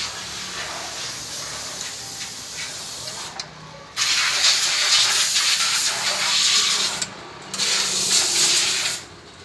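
Loud, steady hissing in two long bursts. Each starts and stops abruptly: the first about four seconds in, the second about half a second after the first ends. A softer hiss runs before them.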